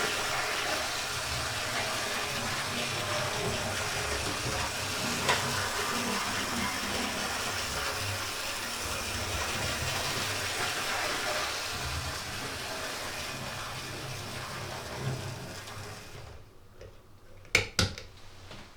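Oxford Rail Adams Radial 4-4-2T OO-gauge model locomotive running steadily at full speed on a test track: motor, gears and wheels on the rails. It runs quietly, its gears freshly greased and oiled. The sound fades about sixteen seconds in, and two sharp clicks follow near the end.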